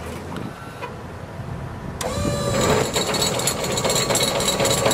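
A box-truck liftgate's power unit starts about two seconds in and runs with a steady motor whine and rattle. Before that there is only a quieter low hum.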